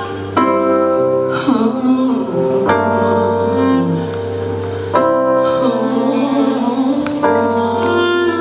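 Instrumental jazz-blues break: loud held chords struck four times, about every two seconds, each sustained until the next.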